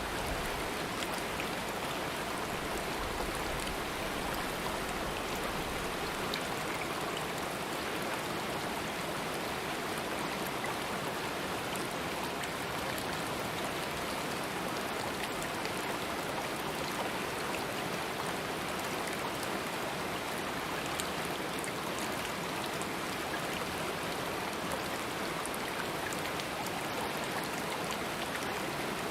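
Stream water flowing in a steady, even rush, with small splashes ticking through it.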